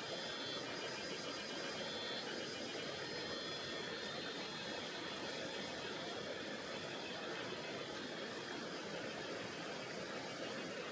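Mountain river rushing over rocks, a steady, even water noise. Faint thin high tones sit over it in the first half.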